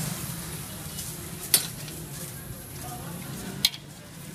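Steady sizzle of food frying in hot oil, with two sharp clicks about two seconds apart.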